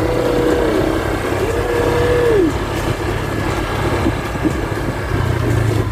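Motorcycle engine running while riding over a rough dirt track. The pitch rises, holds and drops back twice in the first few seconds as the throttle is opened and eased, then it settles to a steady low drone.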